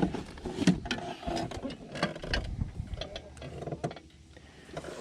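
Handling noises while working a hook out of a largemouth bass's mouth: a scattered run of small clicks and knocks with a low thump or two, quieter near the end.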